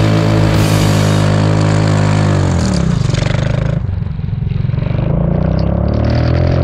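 ATV engine in a converted racing lawn mower running at high revs, dropping in pitch about two and a half seconds in as the throttle comes off, then revving back up through the last couple of seconds.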